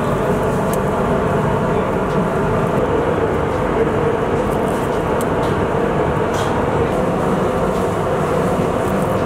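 Steady, loud roar of a commercial kitchen's gas range burners, with a few faint clinks from a spoon on the clay pots.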